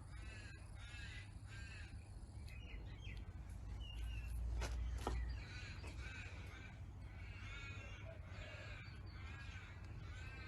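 A crow cawing over and over, a dozen or so short harsh calls in irregular groups. A low rumble swells briefly in the middle.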